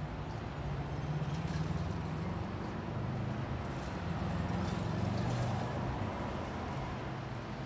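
City street traffic with the steady low engine hum of a city bus on the road.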